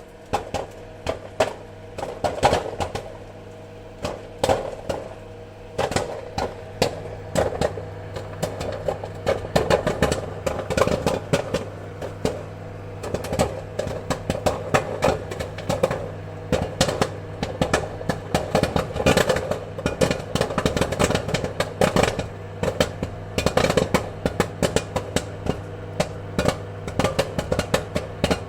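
Popcorn popping rapidly: many sharp, irregular pops, several a second and sometimes in quick clusters, over a steady low hum.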